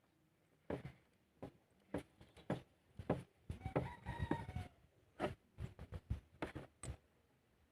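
Scattered metallic clicks and knocks of a spark plug wrench and the plug being worked into a Honda EX5 Dream's engine. A rooster crows once, about three and a half seconds in, lasting about a second.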